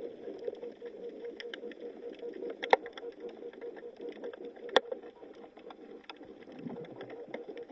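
Underwater ambience heard by a submerged camera: a steady low hiss with scattered faint clicks and crackles, and two louder sharp clicks a couple of seconds apart near the middle.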